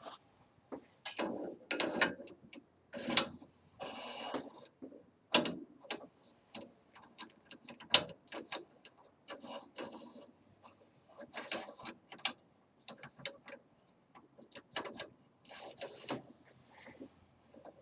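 Remington 700 bolt and action being worked by hand on a headspace go gauge in the freshly cut chamber: irregular metallic clicks, clacks and short scrapes, with one sharp clack about three seconds in.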